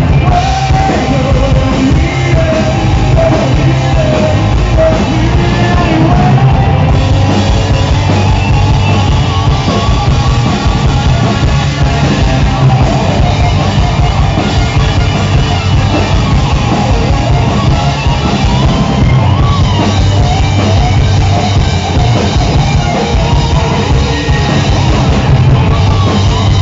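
Loud live rock band playing: electric guitars and drums with singing.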